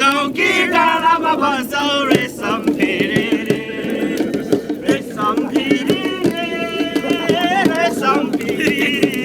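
People singing a song over a steady rhythmic beat of sharp strikes.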